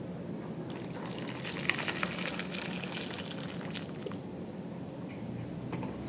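Hot water being poured into a plastic bowl, splashing around a submerged metal fuel-injection warm-up regulator, for about three seconds starting about a second in. The hot water heats the bath toward 60 °C to warm the regulator's wax actuator for calibration.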